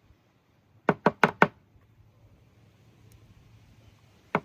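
Four quick, sharp knocks in a row about a second in, then another knock near the end.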